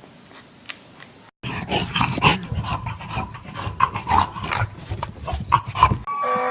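A dog, heard as loud scratchy noise full of short clicks with a few brief higher-pitched sounds, starting suddenly about a second and a half in; before that only faint clicks.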